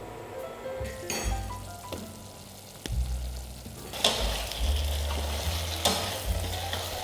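Food frying in hot oil in a pan, sizzling with several louder surges, about a second in, around four seconds and around six seconds, as it is stirred or more goes in. Background music plays under it.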